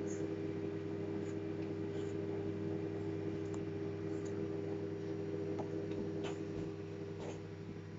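Microwave oven running with a steady hum, a few faint clicks over it; the hum eases slightly near the end.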